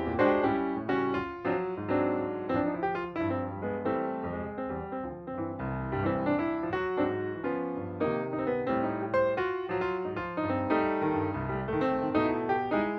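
Piano music with a steady run of many notes, several struck each second.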